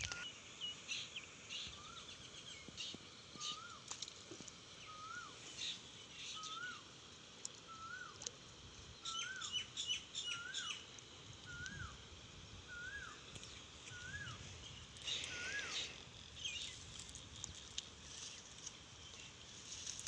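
A bird repeating one short whistled note that rises and then drops, about once a second, stopping about fifteen seconds in, while other birds chirp at a higher pitch.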